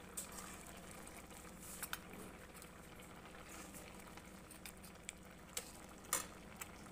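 Thick milk-and-radish sabzi simmering faintly in a kadhai as a steel ladle stirs it, with a few light clinks of the ladle against the pan, the clearest about six seconds in.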